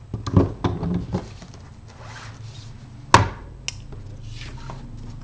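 Card-making tools and paper handled on a tabletop: a few quick knocks and rubs in the first second, then one sharp knock about three seconds in, followed by a smaller click.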